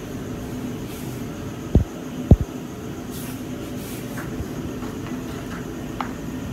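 Steady low background hum, with two dull thumps close together about two seconds in and a couple of faint light clicks later.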